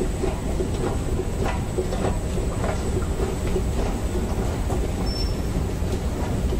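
Long metro-station escalator running: a steady mechanical rumble with scattered light clicks from the moving steps.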